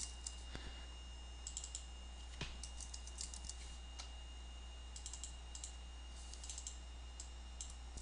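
Faint typing on a computer keyboard: short runs of keystrokes with pauses between them, over a steady low hum.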